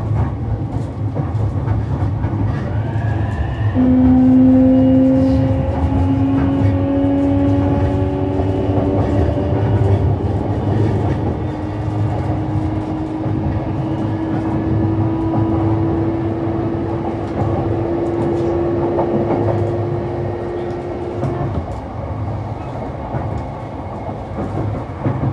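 E233 series 3000 electric commuter train running, wheels rumbling on the rails, with a motor whine that starts about four seconds in, climbs slowly in pitch and cuts off near the end.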